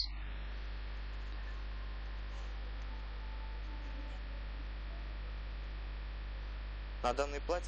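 Steady electrical mains hum with a faint even hiss: background noise only.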